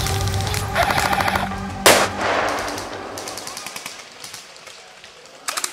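Bursts of rapid automatic gunfire. About two seconds in comes a single loud bang with a long fading tail, the loudest sound here. A fresh volley starts near the end.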